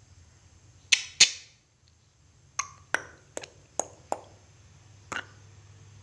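A series of sharp clicks: two loud ones close together about a second in, then five or six lighter ones spaced roughly half a second apart, over a faint low hum.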